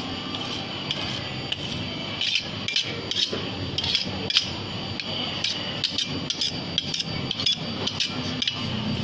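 Metal spatula tapping and scraping on the frozen steel plate of an ice-cream-roll maker, working a thin layer of ice cream with crushed Oreo: sharp irregular clicks, about two a second, over a steady hum.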